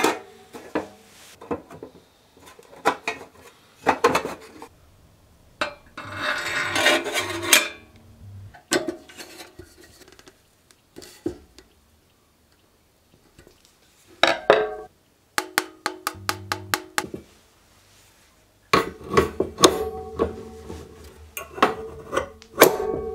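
Metal parts of a Beatrice No.33 paraffin stove clinking and knocking against each other and on the wooden table as the stove is reassembled. A stretch of scraping comes a few seconds in, as parts slide together.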